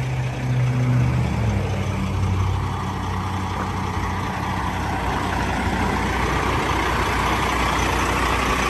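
A Peterbilt 389's Cummins X15 diesel engine idling steadily. Its note drops a little about a second in and then stays level.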